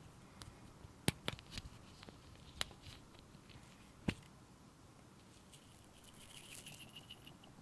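A few sharp clicks and taps, the loudest about a second in and about four seconds in. A soft scratchy rustle follows near the end.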